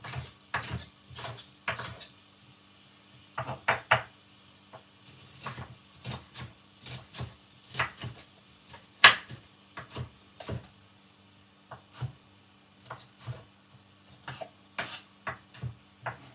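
Kitchen knife cutting bell peppers on a wooden chopping board: irregular knocks of the blade on the board, about one or two a second, the loudest about nine seconds in, over a faint steady hum.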